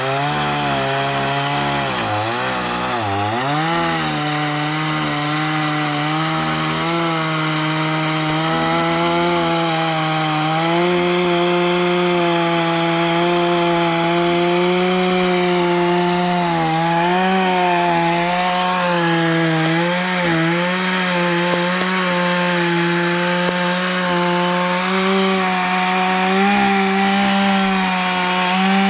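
Kawashima two-stroke chainsaw running at high revs while cutting into the base of a tree trunk. Its pitch drops twice in the first few seconds, then holds fairly steady.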